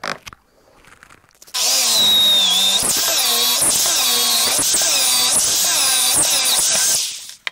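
Electric drill boring a deep hole into a wooden workbench top, starting about a second and a half in. The motor's pitch sags under load and recovers about six times as the bit is lifted again and again to clear the chips. It stops just before the end.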